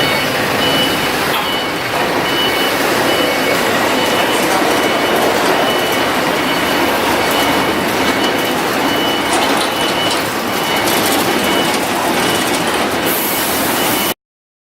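Cummins diesel generator set running steadily: a loud, even drone with a thin, steady high whine above it. The sound cuts off abruptly just before the end.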